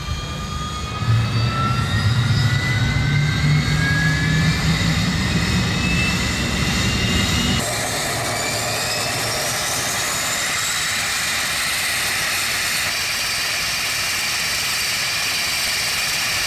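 Pratt & Whitney Canada PW123AF turboprop engine on a Canadair water bomber starting up: a turbine whine rising steadily in pitch over a low rumble. About halfway through the sound changes abruptly, and a higher whine rises once more before settling into a steady running tone.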